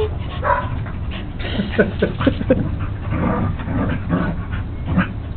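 Dogs playing: a string of short, scattered vocal sounds that bend in pitch, from a Welsh Corgi and a West Highland White Terrier puppy.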